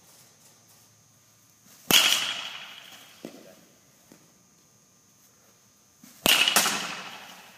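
Baseball bat hitting balls twice, about two seconds in and again about six seconds in. Each hit is a sharp crack with a ringing tail that echoes away. The second hit is followed a moment later by another knock.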